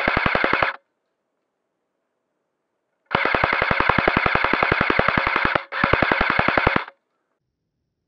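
Airsoft gun firing full-auto bursts of rapid, evenly spaced shots, about fourteen a second. One burst cuts off just under a second in, then a longer burst starts about three seconds in, breaks briefly and runs on until near seven seconds.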